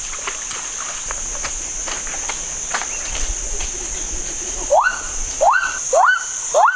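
Steady high-pitched drone of forest insects with a few faint clicks. About five seconds in, a louder rising whistled call starts and repeats about twice a second.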